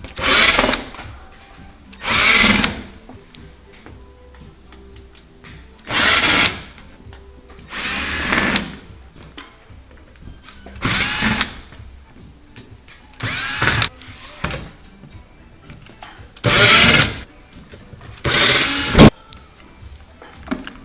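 A power drill-driver runs in eight short bursts of about a second each, spaced a couple of seconds apart, backing out the screws that hold a refrigerator's top cover.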